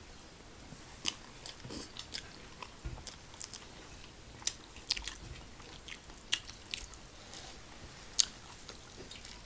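Close-up mukbang eating: chewing and biting with scattered sharp crunches and wet mouth clicks. One louder click comes about eight seconds in.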